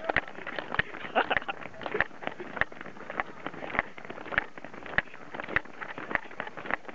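Running footsteps of a group of runners on a paved road, a rapid, irregular patter of sharp footfalls several times a second.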